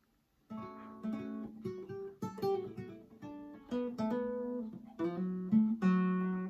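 Nylon-string classical guitar strung with Ernie Ball Ernesto Palla black-and-gold ball-end strings, played as a short passage of plucked notes and chords starting about half a second in, with fuller low bass notes near the end.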